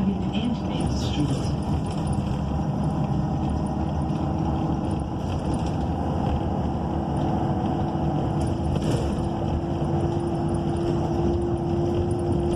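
Cabin noise of a 2012 ENC EZ Rider II transit bus under way: steady engine and road noise from its Cummins Westport ISL G natural-gas engine. About halfway through a steady whine joins in and climbs slightly in pitch.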